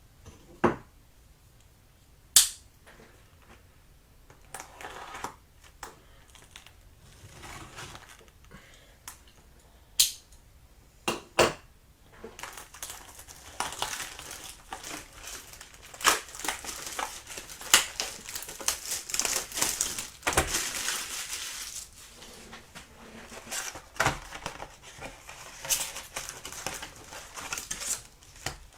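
A sealed trading-card box being opened by hand. A few sharp snaps and clicks come in the first half, then a long stretch of crinkling and tearing of plastic wrap and cardboard packaging.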